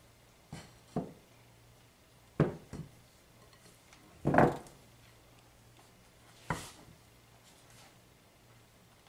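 Wooden spoon knocking and scraping against a glass bowl while stiff marshmallow fondant is stirred by hand: a few irregular knocks, the loudest and longest about four seconds in.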